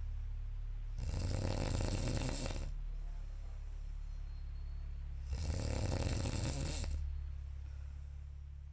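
A sleeping person snoring loudly, two long snores about four seconds apart over a steady low hum.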